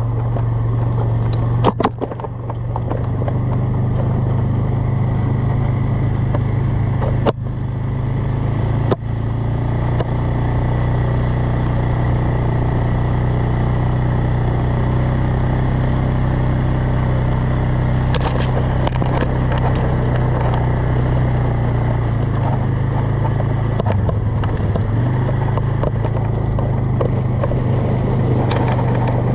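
A vehicle's engine running at a steady speed, a constant low drone, with a few sharp knocks in the first ten seconds.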